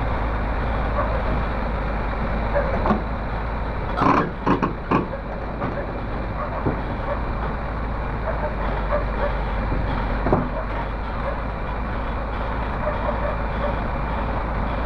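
Komatsu PC300 hydraulic excavator's diesel engine running steadily while the boom and bucket are worked, with a quick cluster of sharp knocks about four seconds in and single knocks later.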